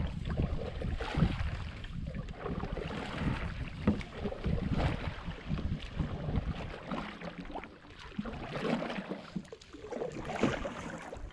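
Canoe paddling: paddle blades dipping and pulling through the water in irregular strokes, with splashes and reeds brushing along the hull.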